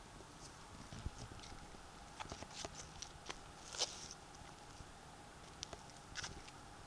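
Footsteps crunching on dry fallen leaves and stones: scattered soft crunches and clicks at an uneven pace, the loudest about four seconds in.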